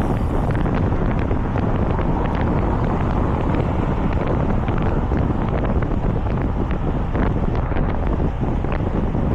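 Wind rushing over the microphone of a mountain biker's camera while riding on the road, a steady loud buffeting with scattered small clicks.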